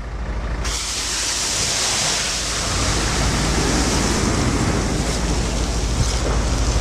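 Hand-held fire extinguisher discharging: a loud hiss starts suddenly about half a second in, strongest for the first two seconds, then goes on a little duller, over a low rumble.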